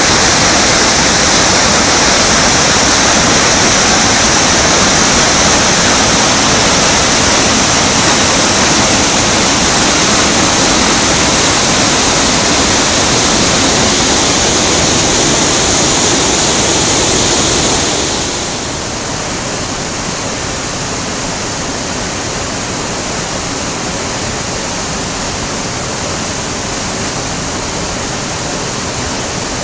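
Brugent river in flood: fast, muddy floodwater rushing over and around rocks, a loud, steady rush of water. A little over halfway through it drops slightly in level and loses some of its hiss.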